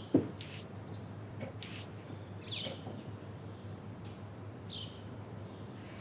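Quiet room tone with a steady low hum, a single thump just after the start, and a few faint, short bird chirps now and then.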